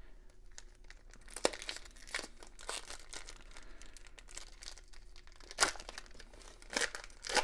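Foil wrapper of a trading card pack crinkling and tearing as it is worked open by hand, with a few sharp, louder crackles.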